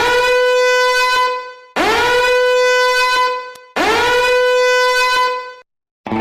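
A horn sound effect blown three times, each blast scooping up into one steady, bright note and holding for about a second and a half, with short gaps between.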